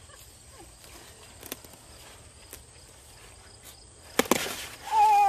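Shears snipping through a Russian Mammoth sunflower stalk about four seconds in: a few sharp clicks and a crackle of stalk and leaves. Right after it, a woman's short, high exclamation.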